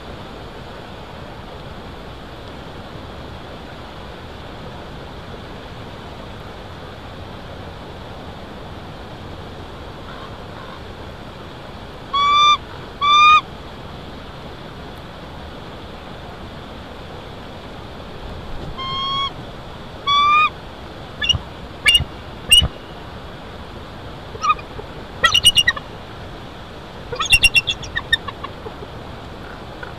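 Bald eagle calls over steady wind noise: two pairs of short calls, then a run of sharper, rapid chattering calls in the last third. They are alarm calls at ravens circling the nest.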